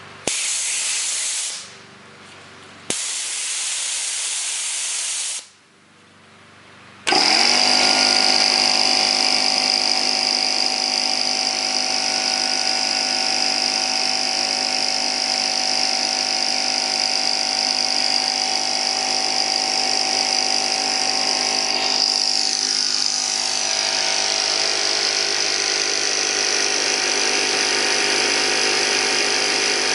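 Compressed air hissing out of a Porter-Cable pancake air compressor in two short bleeds. About seven seconds in, its oil-free pump motor kicks on suddenly and runs steadily, cutting in because the tank pressure has dropped.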